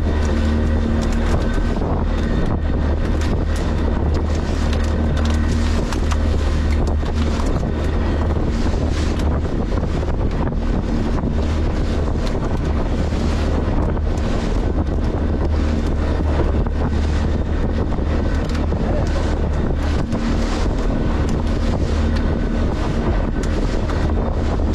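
Fishing boat's engine running steadily underway, a constant low hum, with wind buffeting the microphone.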